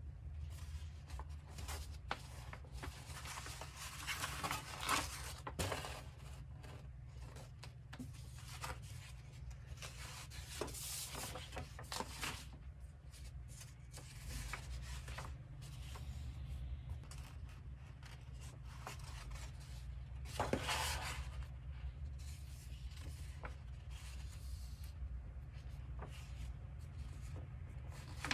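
Large A3 paper poster pages of a softcover book rustling and sliding as they are unfolded and turned by hand, with several louder swishes as whole sheets are swung over.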